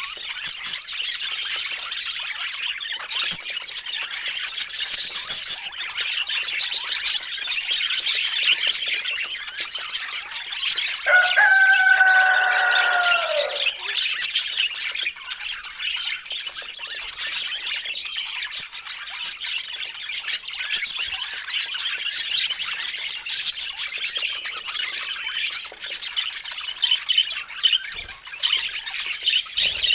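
Budgerigar warbling and chattering in a continuous stream of rapid high chirps. About eleven seconds in comes one louder, longer call that falls slightly in pitch.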